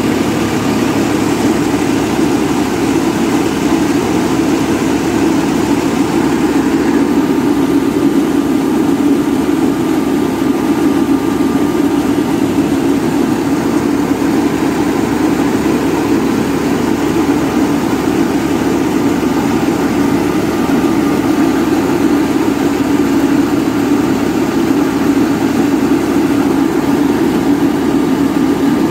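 Tractor-driven mobile rice mill running steadily: the tractor's engine drives the huller and double polisher through belts and pulleys. A constant, unbroken machine drone with a faint steady high whine.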